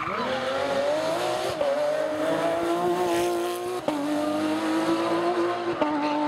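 A Porsche 911 GT3 rally car's engine is pulled hard at high revs as the car drives through a bend and past. Its pitch steps down about three times.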